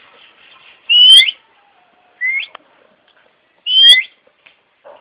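Pet green parrot calling three times with short, rising whistled screeches, the first and last loud and longer, the middle one shorter.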